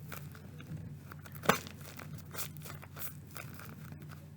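Crinkling and rustling of a homemade squishy being handled and squeezed, with many small crackles and one sharper click about a second and a half in.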